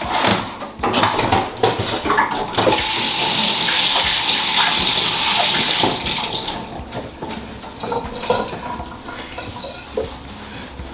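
Kitchen tap running into the sink for about three seconds, with a few knocks and clatter before it and lighter handling sounds after it stops.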